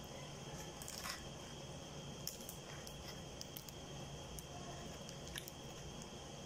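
Faint crinkling of a thin plastic food glove and a foil food tray with scattered small clicks, as chicken is pulled apart by hand; a brief louder crinkle about a second in, over a steady low hum.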